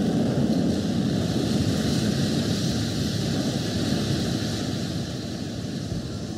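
A steady rushing noise, without pitch or beat, slowly fading.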